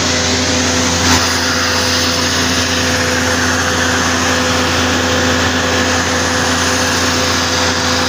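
Electric pressure washer running steadily, its water jet hissing against the fins of an air-conditioner condenser coil, with a steady motor hum underneath. A brief knock about a second in.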